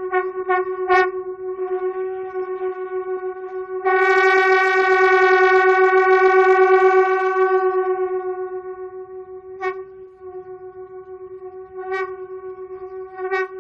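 Two conch shells blown at once by a single player over a steady low drone. It starts with quick rhythmic pulses, about three a second, then swells about four seconds in into a long, loud sustained blast that fades away, followed by sparser separate pulses.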